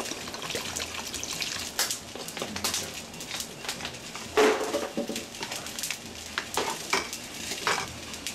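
Pot of afang soup simmering with a steady sizzling hiss, while a metal spoon stirring it clinks and scrapes against the pot in short sharp knocks. One louder, fuller scrape comes about four and a half seconds in.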